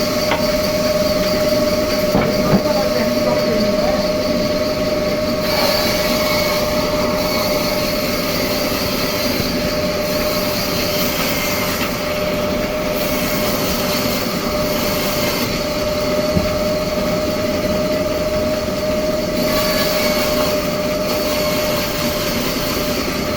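Sawmill saw running, a steady whine over a dense rushing noise.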